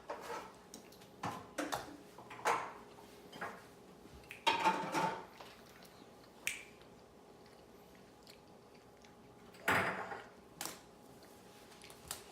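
Scattered short clicks and rustles of small things being handled, with a longer rustle about four and a half seconds in and another near ten seconds.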